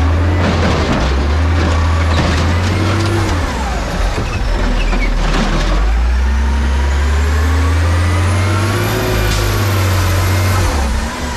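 Autocar side-loader garbage truck's diesel engine revving to drive the hydraulic automated arm, which dumps a recycling cart into the hopper and sets it back down with several clanks. In the second half the engine pulls the truck away.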